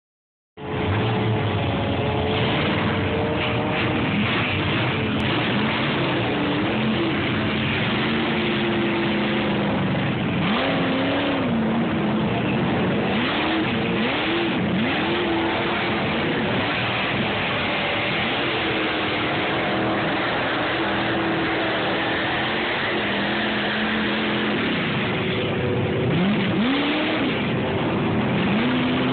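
Engines of big-tyred mud trucks running hard and revving while they plough through a mud pit, the pitch climbing in repeated surges over a steady wash of engine noise.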